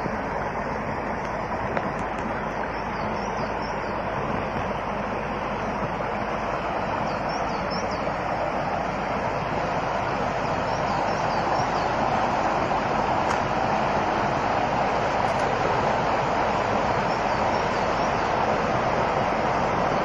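Steady rushing noise that grows slowly louder, with faint high bird chirps now and then above it.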